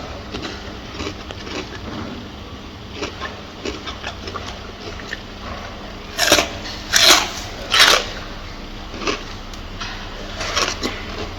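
Gorilla eating: soft clicking chewing sounds, with three louder noisy bursts in quick succession about six to eight seconds in.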